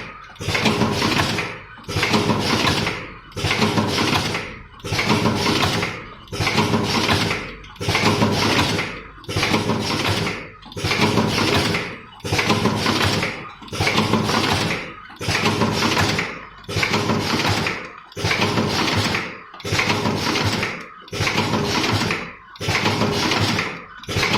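Cartoning machine running in a steady cycle: a repeated mechanical noise with a short gap between strokes, about one cycle every one and a half seconds.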